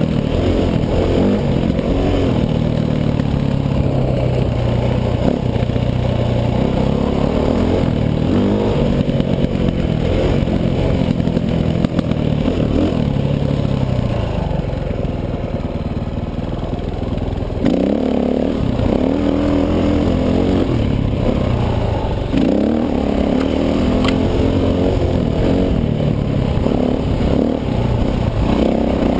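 2010 KTM 450 XC-W dirt bike's single-cylinder four-stroke engine running on a trail ride, its pitch rising and falling with the throttle. The rider eases off for a few seconds around the middle, then gets back on the gas and pulls up a steep rutted climb near the end.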